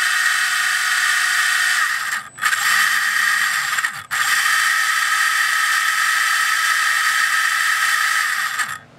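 ORCA Blitreme 3 brushless RC motor driving a load motor through a 31-tooth pinion and gear train under an automatic load test, giving a loud, steady high whine of motor and meshing gears. It cuts out briefly twice, a little after two seconds and about four seconds in, and stops just before the end.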